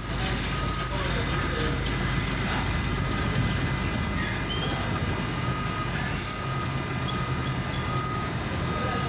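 Steady rumble of a large engine running, with two short hisses, one about half a second in and one about six seconds in.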